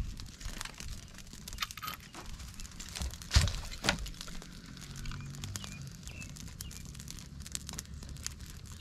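Small kindling fire of dry twigs crackling with scattered pops, and sticks being shifted on the fire, with two sharper knocks about three and a half seconds in.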